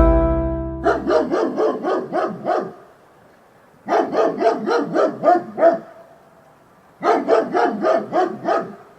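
A dog yapping in three quick runs of high barks, about four or five barks a second, with short pauses between the runs. Background music fades out just before the first run.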